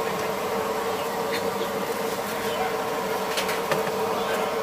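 A steady buzzing hum held on a single unchanging pitch.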